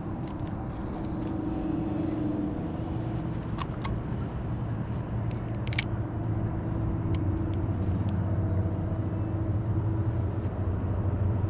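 A boat motor running with a steady low hum, with a few light clicks over it.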